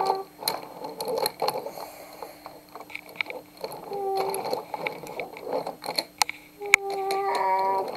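Wooden toy train rolling along wooden track, its wheels clattering with irregular clicks over the track joints and crossing. A child's voice sings a few short notes about halfway through and again near the end.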